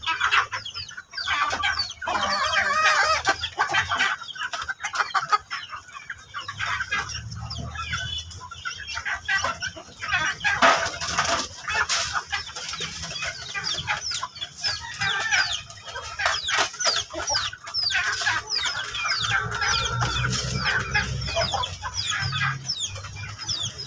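Chickens clucking and calling continuously at feeding time, with many quick high-pitched calls that grow thicker in the second half.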